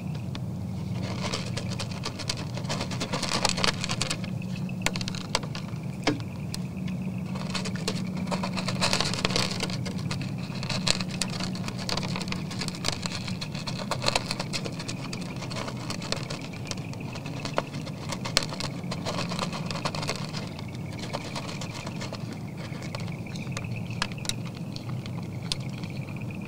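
Whitetail buck feeding at a feeder pan: irregular crunching and clicking as it chews the feed and its muzzle works through the pan, busiest in the first half and thinning out near the end.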